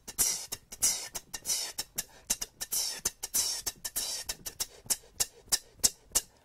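Beatboxed hi-hat rhythm: crisp 't' clicks made with the tongue behind the top teeth, mixed with longer hissing 'tss' open hi-hats, about five strokes a second.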